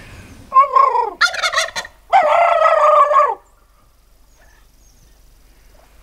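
Wild turkey toms calling: a falling call, then a rapid rattling gobble, then a long held call, all within the first three and a half seconds.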